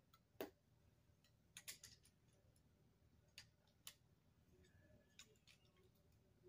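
Faint, sharp clicks of small plastic Lego pieces being handled and snapped together as a broken Lego spinner is rebuilt. A handful of separate clicks, with a quick cluster about two seconds in.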